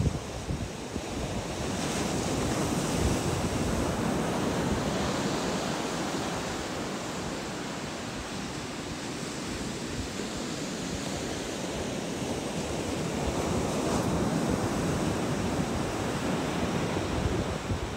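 Ocean surf breaking and washing up on a beach, rising and falling in two slow swells, with wind rumbling on the microphone.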